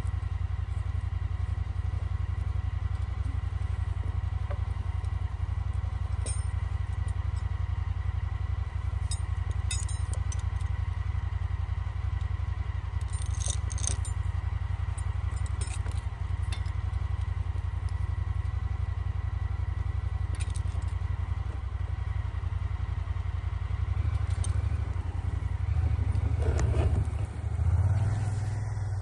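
Vehicle engine running steadily while being driven, with scattered light clinks and rattles. The engine gets louder for a few seconds near the end.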